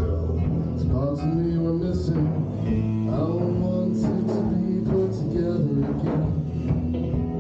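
A man singing over electric guitar, with a drum beat and a steady low bass line: a live rock song played through amplifiers.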